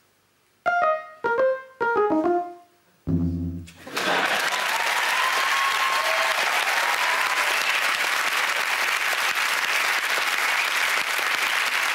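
A small electronic keyboard plays five short notes, each lower than the last, then one low buzzy note. About four seconds in, a studio audience breaks into steady applause that runs on.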